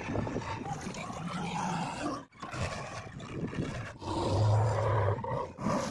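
JCB 3DX backhoe loader's diesel engine running under load as it drives and works its bucket, heard in short clips cut together, with abrupt breaks about every second and a half.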